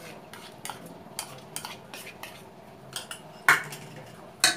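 Stainless steel spoon clinking and scraping against a steel mixing bowl while spice paste is spooned onto raw mutton pieces. A run of light clicks, with two louder clanks, about three and a half seconds in and near the end.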